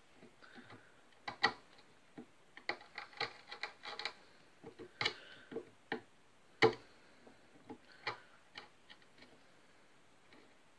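Small wood chisel cutting away wood on an acoustic guitar's headstock, paring it off in small nibbles. It makes a series of irregular sharp clicks and taps, the loudest about a second and a half in and again past the middle.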